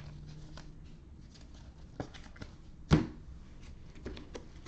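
Trading cards in plastic sleeves being handled on a table: faint scattered ticks and rustles, a sharp click about two seconds in and a louder knock about three seconds in.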